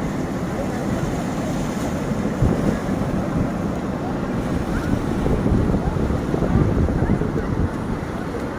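Steady low rumbling noise with wind buffeting the microphone.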